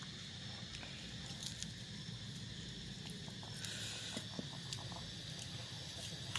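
Soft rustles and faint clicks of hands folding herb leaves around a piece of grilled beef and dipping the roll into a sauce bowl, over a steady high hiss; a brief louder rustle comes about four seconds in.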